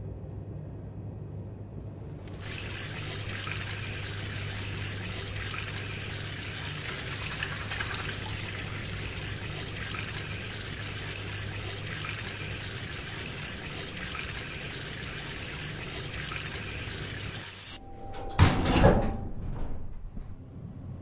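Shower running: a steady hiss of spray that starts about two seconds in, over a low hum. The spray cuts off near the end, and a brief, loud thump follows.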